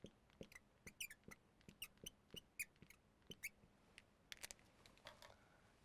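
Faint, quick squeaks and ticks of a marker writing a word and underlining it on a glass lightboard.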